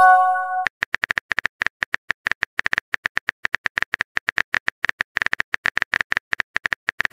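Phone chat-app notification chime as a message arrives, a short chord of steady tones, then a quick, uneven run of on-screen keyboard tap clicks as a text message is typed.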